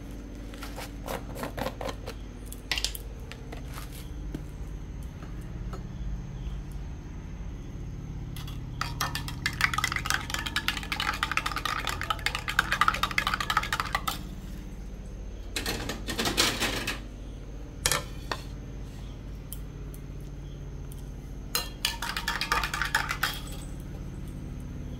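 Metal spoon stirring milk in a stainless-steel tumbler, clinking rapidly against the inside: a long spell in the middle and two shorter spells later, with a few single clicks early on. A steady low hum runs underneath.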